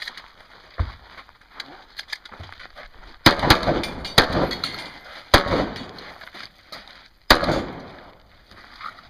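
Shotgun fired repeatedly during a match stage: four loud shots from about three to seven seconds in, the last after a pause of about two seconds, each with a short echoing tail, and a fainter shot or knock about a second in.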